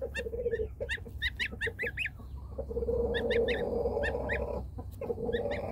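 Goslings peeping in many short, high, repeated calls, over lower fowl calls that hold steady for a couple of seconds in the middle.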